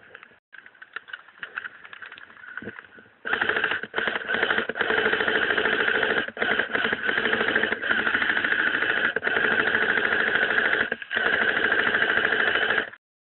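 Airsoft electric rifle firing on full auto, a fast loud mechanical rattle in long strings. It starts about three seconds in, breaks off briefly a few times, and stops abruptly near the end.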